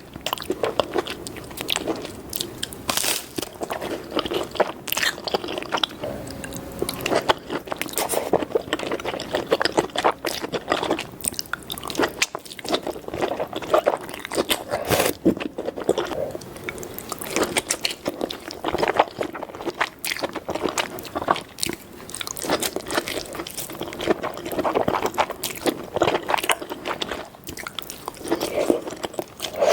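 Close-miked chewing and crunching of king crab in a creamy cheese sauce: irregular wet crunches, bites and smacking throughout.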